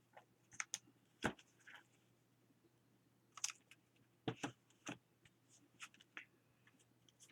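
Faint handling of paper cutouts on a work surface: scattered light taps and rustles, a few sharper clicks about a second in and again around the middle.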